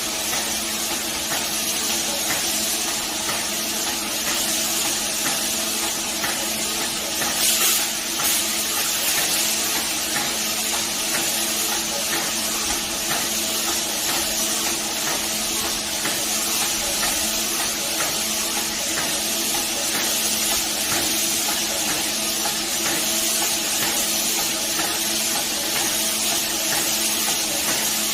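Paint sprayer spraying coating: a steady hiss of spray over the steady hum of its pump, with one brief louder burst about a third of the way in.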